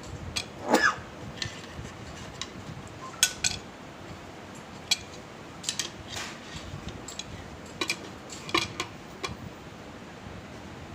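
Irregular metal knocks and clinks of hand tools tapping and working on a BMW G12 front air shock absorber as it is taken apart, trying to free a part that is stuck tight. About a second in there is a louder short sound that falls in pitch.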